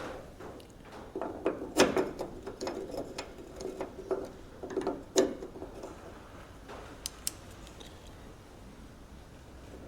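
Hand tools and bolts clicking and knocking against metal car body parts as door hardware is fitted, with a few ratchet-like clicks. The clicks and knocks come thickest in the first five seconds, then thin out to a couple of light ticks.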